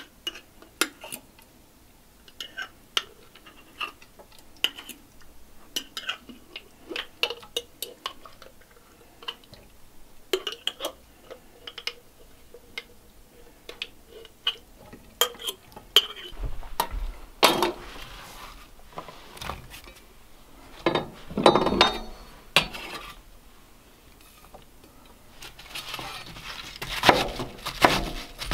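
Metal fork scraping and clinking against the inside of a glass mason jar as bottled venison is dug out into a cast iron skillet, a string of light sharp clicks. From about halfway on, louder, longer bursts of scraping and handling noise take over.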